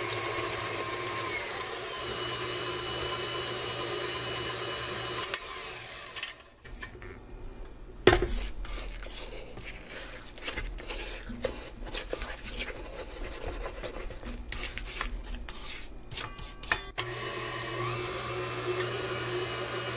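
KitchenAid Classic Plus tilt-head stand mixer running with its flat beater through cookie dough; its motor drops in pitch about a second and a half in and stops after about five seconds. A sharp knock comes about eight seconds in, followed by a spatula scraping and tapping on the stainless steel bowl, and the motor starts up again near the end.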